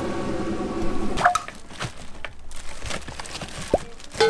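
A steady mechanical hum with several pitches runs for about a second. It gives way to quieter scattered clicks and knocks of packages and shelves being handled in a fridge.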